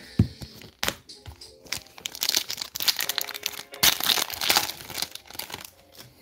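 A trading-card pack wrapper crinkling and tearing as it is handled and opened. There is a soft thump and a click in the first second, then dense crinkling through the middle.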